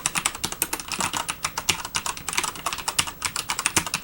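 Fast typing on a Logitech G610 Orion Red mechanical keyboard with linear Cherry MX Red switches: a rapid, irregular stream of key clacks.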